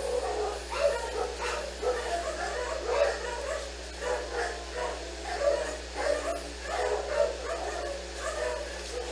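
Dogs howling and yipping, a continuous run of short, wavering, overlapping calls.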